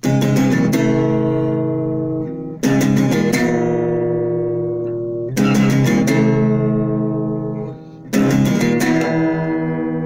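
Acoustic guitar strumming slow chords: four chords, each struck with a quick flurry of strokes and left to ring, about one every two and a half to three seconds.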